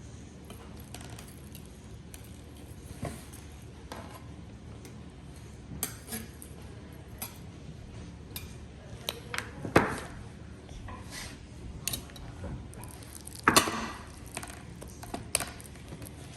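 Slime being handled and squeezed, giving irregular small clicks and pops, with louder pops about ten seconds in and again about thirteen and a half seconds in.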